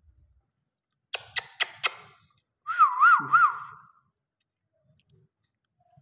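Fischer's lovebirds calling: four sharp, quick chirps about a second in, then a louder warbling whistle that dips and rises in pitch three times.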